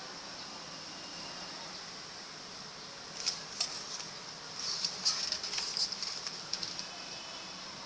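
Glossy pages of a photobook being handled and turned: crisp paper rustles a little after three seconds in, and a longer run of rustling from about four and a half to six seconds, over a steady high hiss.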